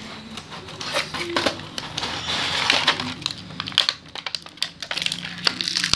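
Clear plastic packaging crinkling and crackling in irregular bursts as an action figure is pulled out of it. The crinkling is busiest around the middle and thins to scattered crackles near the end.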